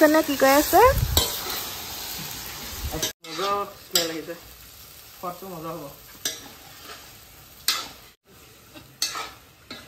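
Pieces of duck and potato sizzling and frying in a wok over a wood fire. A metal spoon stirs them, scraping and clicking against the wok again and again.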